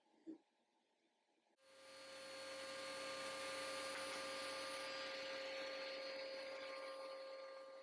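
Cabinet table saw motor running with a steady whine and hiss, coming up about one and a half seconds in.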